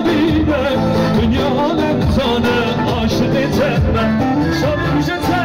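Loud amplified wedding dance music, a wavering melody over a dense, continuous backing.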